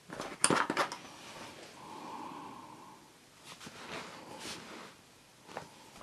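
Wooden coloured pencils clicking and rattling against one another as one is picked out of the set, with a quick cluster of clicks about half a second in, a few more near the middle, and one last click near the end.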